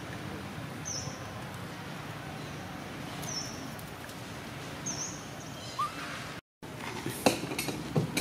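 Outdoor ambience: a steady low rumble with a few short high chirps in the first five seconds and a brief rising squeak near six seconds. After a sudden break, a few sharp clicks and rustles follow.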